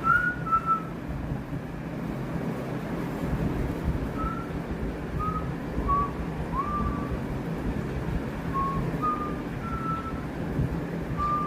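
A pet bird giving short, clear single whistled notes, spaced irregularly, a couple louder at the start and one sliding upward midway, over a steady low background rumble.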